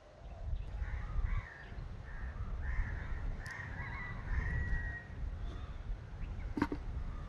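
Birds calling repeatedly, crow-like caws, over a low rumble of wind on the microphone. A single sharp knock comes about two-thirds of the way through.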